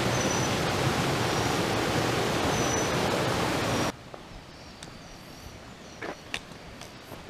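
Loud, steady rushing of running water, which cuts off abruptly about four seconds in. Quiet forest ambience with a few faint clicks follows.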